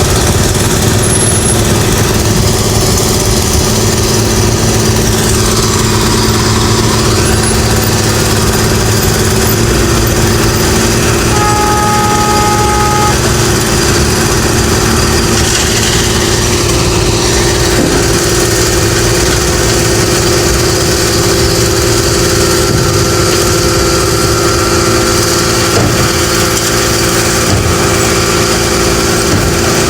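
Construction machinery engines running steadily. A brief two-note tone sounds about twelve seconds in.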